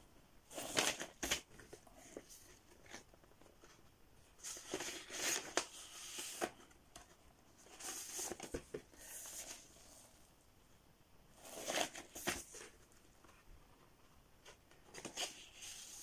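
Quiet papery rustling and sliding as vinyl LPs in paper inner sleeves are handled and slipped into a cardboard gatefold record jacket, in several short separate bouts.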